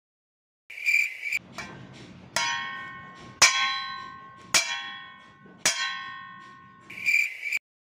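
Metal struck four times, about a second apart, each strike ringing out with a long bell-like tone. A short shrill chirping burst comes just before the first strike and again near the end.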